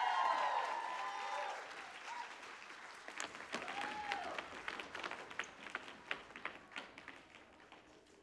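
Audience applauding, with a few cheers and whoops at the start and one more about four seconds in; the clapping thins out and fades toward the end.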